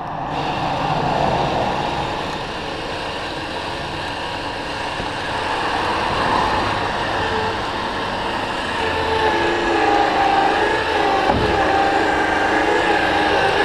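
Electric truck-bed winch pulling a heavy wood round, a steady motor hum that turns into a wavering whine under load about halfway through. A single thump a few seconds before the end.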